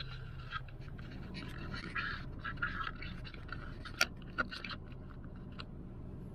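Handling noise from a camera being gripped and repositioned: scraping and rubbing with scattered clicks, two sharper clicks about four seconds in, then settling. A steady low hum from the car cabin runs underneath.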